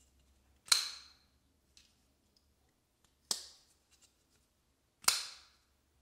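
Divo Pony Stout folding knife being worked open and shut by hand: three sharp metallic snaps of the blade seating, each with a short ringing tail, with a couple of faint clicks between them.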